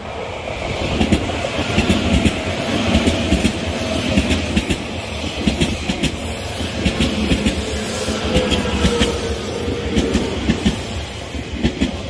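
Odakyu electric commuter train passing close by, its wheels clacking over the rail joints in quick rapid clicks, with a faint whine that falls in pitch.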